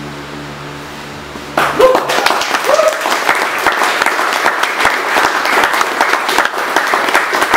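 A held chord of background music ends about a second and a half in, and the audience suddenly breaks into applause with a few cheers, clapping steadily to the end.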